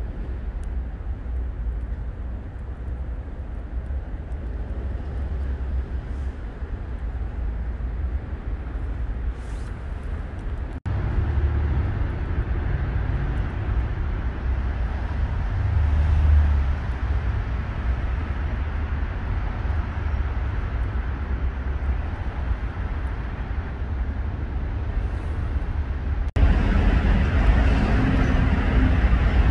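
Steady low outdoor background rumble with no distinct events, changing abruptly at two edits, about 11 s and 26 s in.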